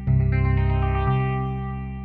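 Background music with guitar: a chord strikes at the start and changes about a second in, over a steady bass.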